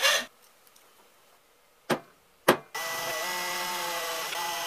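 The end of a hacksaw stroke through a thin aluminium strip, then two sharp clicks. Then a cordless drill runs at a steady, even pitch, drilling through the aluminium strip.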